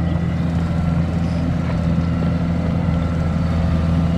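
Kubota combine harvester's diesel engine running steadily as the machine drives on its crawler tracks, a low even drone that grows slightly louder as it approaches.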